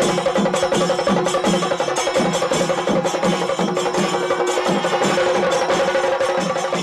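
Kerala temple festival ensemble (chenda melam): chenda drums beaten with sticks in a fast, even rhythm, with kuzhal pipes and kombu horns holding steady tones over the drumming.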